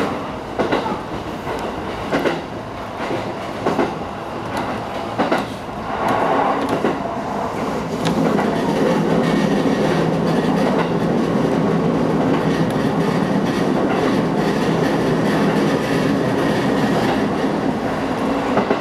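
JR East E233-8000 series electric train running, heard from inside the cab: wheels clacking over rail joints about every second and a half, then from about eight seconds in a louder, steady running drone.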